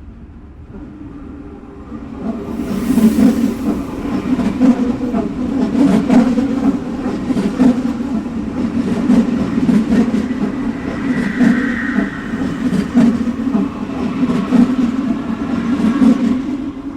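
Subway train running along the tracks: a steady low rumble with sharp clicks of the wheels over the rail joints. It grows louder about two seconds in, with a brief high wheel squeal a little past the middle, and drops off at the very end.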